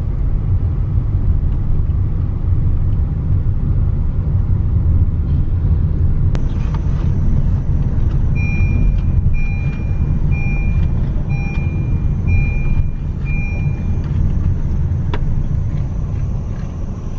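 Motor vehicle running with a loud, steady low rumble. About halfway through, a run of about six short electronic beeps, roughly one a second, sounds over it.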